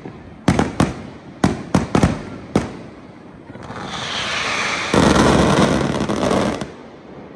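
Fireworks: six sharp bangs of bursting shells in the first three seconds. Then a ground fountain hisses, swelling from about three and a half seconds in into a loud spray that stops suddenly near the end.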